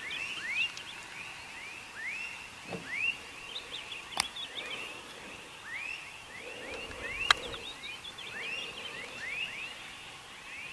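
Night chorus of small calling animals: many short rising chirps, overlapping and repeating several times a second. Two sharp clicks stand out, about four and seven seconds in.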